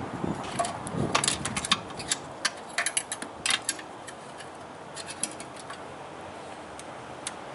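Scattered sharp clicks and light rattles of hands and a thin tool working at a rubber firewall grommet to feed wires through. The clicks come thick in the first few seconds and then only now and then.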